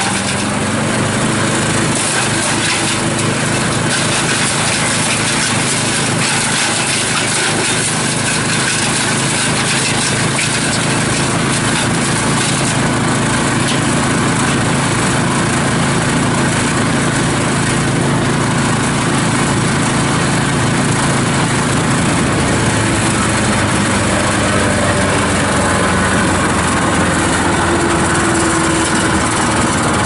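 Bandit 65XP self-feed wood chipper running, its 35 hp Vanguard V-twin gas engine driving the cutter: a loud, steady engine drone with the whoosh of the spinning chipper.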